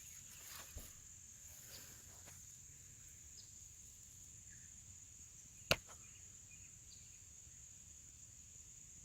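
Faint, steady high-pitched chirring of insects, with one sharp click a little past halfway and a few fainter ticks.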